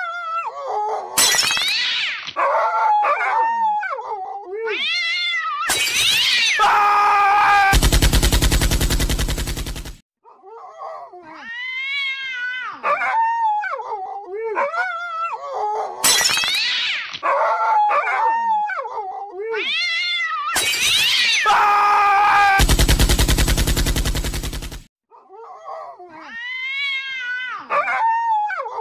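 Animal yowling calls that rise and fall in pitch, with a loud rasping stretch about eight seconds in. The same sequence then repeats, as a loop, about every 14 seconds.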